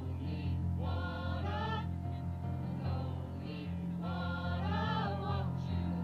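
A small mixed choir of carol singers singing a Christmas carol, accompanied by an electronic keyboard holding steady low notes.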